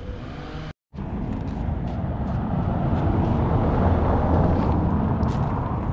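A motor vehicle passing by on the street: its noise swells for about three seconds and then fades. There is a brief break in the sound about a second in.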